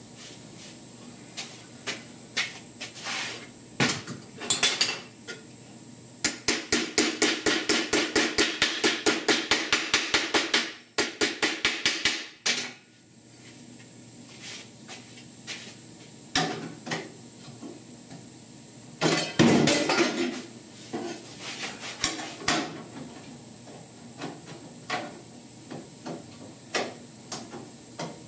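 Pneumatic planishing hammer striking sheet steel while a vent pod is reshaped: scattered single blows, then a rapid run of about six to seven blows a second for roughly four seconds, then more short bursts and spaced strikes.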